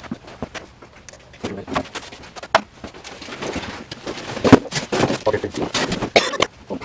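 Irregular clicks, knocks and clatter from handling tools and parts, the loudest knock about halfway through, with indistinct voices at times.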